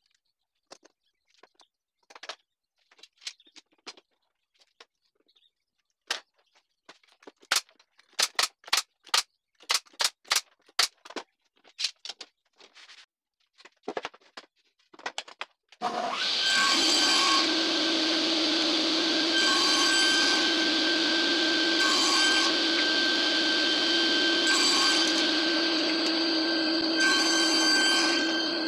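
Scattered clicks and knocks, with a quick run of sharp strikes in the middle. About sixteen seconds in, a table saw starts and runs steadily with a held hum, growing brighter and hissier in short spells every two to three seconds as boards are pushed through.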